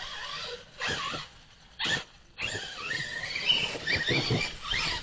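Dogs vocalising in play: a few short noisy bursts, then a run of wavering whine-like calls in the second half.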